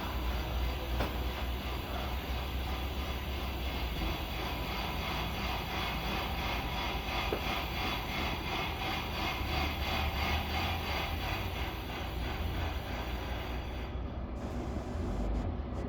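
Car engine running with a steady grinding noise over its low rumble, the symptom that the mechanic traces to a worn water pump and belts.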